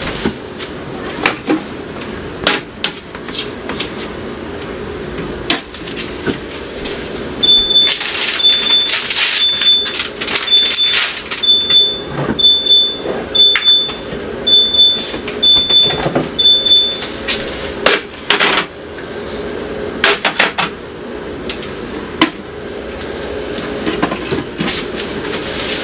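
Plastic fridge shelves, bins and packaged food being set in and shifted around, with a steady run of sharp knocks and clatters. A high electronic beep repeats about three times every two seconds for some ten seconds in the middle.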